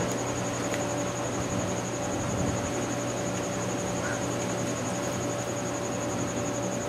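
Steady background hiss and low hum with a constant mid-pitched tone and a faint pulsing high whine. A couple of faint clicks; no distinct working sounds stand out.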